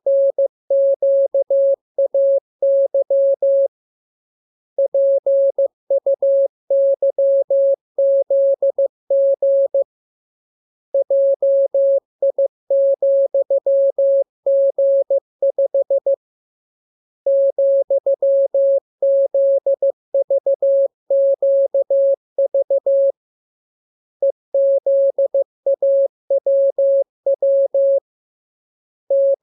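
Morse code (CW) sent as a single steady-pitched beep, keyed on and off in quick dots and dashes. The characters come in runs of several seconds, each followed by a pause of about a second: a practice radiogram for learning to copy Morse by ear.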